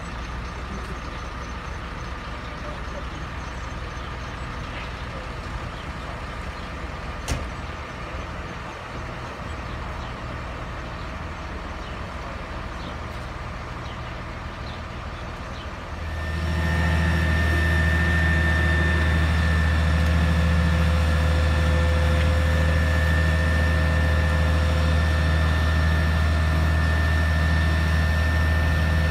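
Fire trucks' diesel engines idling. About halfway through, a much louder steady engine hum with a high, even whine sets in and holds: the turntable ladder truck's engine running up to drive the hydraulics as the ladder is raised.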